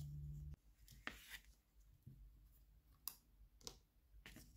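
Faint clicks and scrapes of small clear plastic radio-case parts being handled on cardboard, about five separate short ones. A low hum stops abruptly just after the start.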